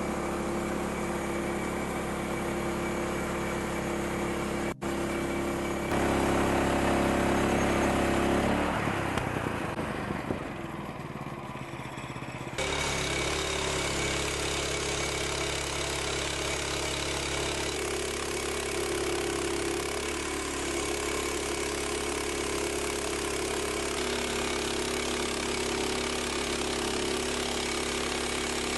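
Engine running steadily, its sound changing abruptly a few times and dipping for a few seconds partway through.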